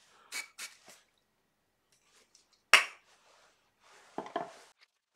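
Three quick hissing puffs from an aerosol can of CA glue activator, sprayed on a freshly glued pen blank to cure the glue, all within the first second. About midway there is one sharp, loud click, and near the end a brief knocking and rubbing.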